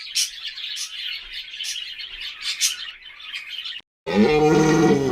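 Small birds chirping in quick, repeated high calls, then after a brief cut a loud, wavering bleat begins near the end.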